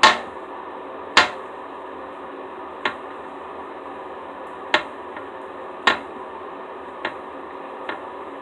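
Slime being kneaded and squeezed in the hands, giving sharp pops and clicks about once every second or two, seven in all.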